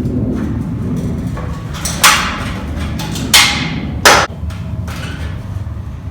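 Three loud, sharp knocks about two, three and a half and four seconds in, over a steady low hum.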